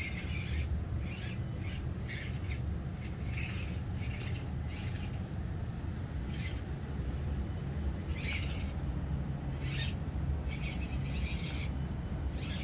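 Axial SCX24 micro RC crawler driven in short throttle blips: a dozen or so brief bursts of small-motor and gear noise, irregularly spaced, over a steady low hum.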